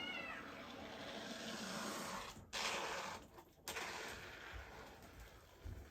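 Can of window-and-door spray foam hissing as the foam is dispensed, in long spurts with short breaks about two and a half and three and a half seconds in. A brief high cry that rises and falls comes at the very start.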